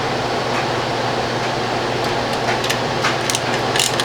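Steady fan-like air noise with a low hum. From about two seconds in come light clicks and taps of small screws and tools being handled.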